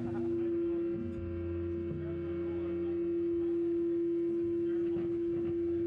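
Steady electronic tone held from a band's amplified rig, one pitch sustained over a low amplifier hum.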